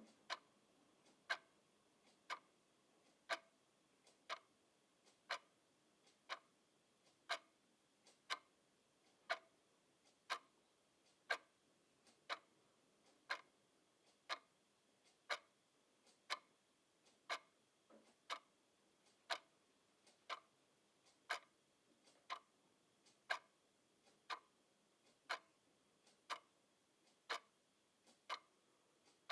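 Clock ticking steadily at about one tick a second, the ticks alternating louder and softer in a tick-tock pattern.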